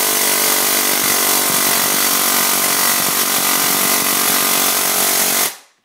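Airsoft AEG's motor and gearbox cycling on full auto through a MOSFET trigger, one long continuous burst that stops about five and a half seconds in. It is a sustained-fire heat test of the MOSFET.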